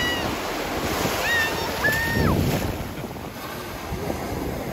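Small waves breaking and washing over the sand in shallow surf, with wind on the microphone. A few short, high-pitched cries are heard about a second or two in.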